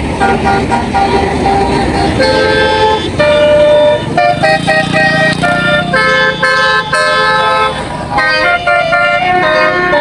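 Bus 'telolet basuri' musical horn playing a quick melody of short notes that change pitch every fraction of a second, with the bus's engine running underneath.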